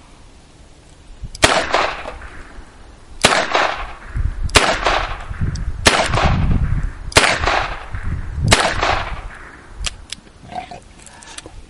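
Six shots from a .22 rimfire Smith & Wesson revolver, fired one at a time about one and a half seconds apart, each a sharp crack with a short echo.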